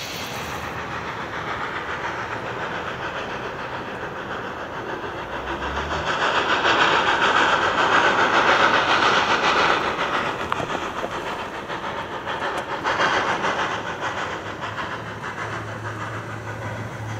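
Narrow-gauge steam locomotive (Visp–Zermatt HG 2/3 No. 6) working a train, its rapid exhaust chuffs and steam hiss getting louder as it approaches, loudest about halfway through.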